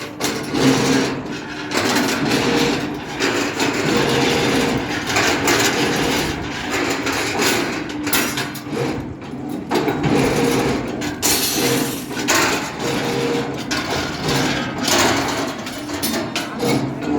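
CNC rebar bending machine at work: its motor hums and whines in stretches, and the steel bars knock and clank repeatedly.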